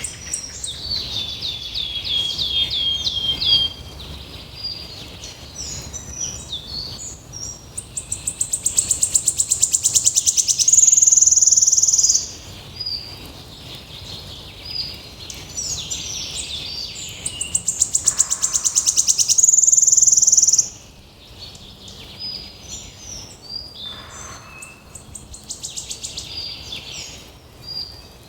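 Small birds singing and calling: a quick series of repeated chirped notes, scattered high chirps, and loud rapid pulsed trills twice.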